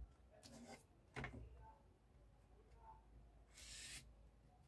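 Quiet handling of a plastic pattern ruler on paper, with a light knock about a second in, then a short scratch of a marker pen drawn across the paper near the end.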